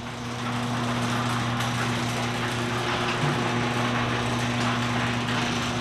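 Steady droning hum of a motor or small engine at one constant low pitch, with a hiss above it, swelling in over the first half second.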